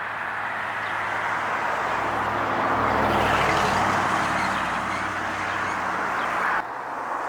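A car passing by: engine and tyre noise that swells to its loudest about three seconds in, then fades, and drops off abruptly near the end.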